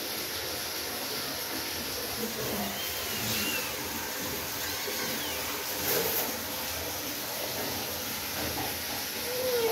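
Steady hissing background noise, with a few faint kitten calls and one clearer rising-and-falling kitten mew near the end.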